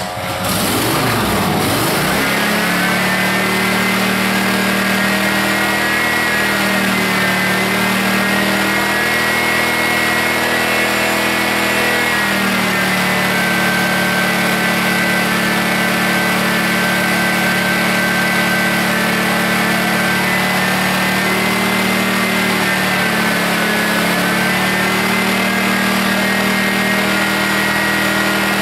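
Rebuilt Kawasaki twin-cylinder mower engine catching and speeding up, then running steadily, its pitch sagging and recovering a few times. It runs a little rough, which the owner blames on a stretched governor spring.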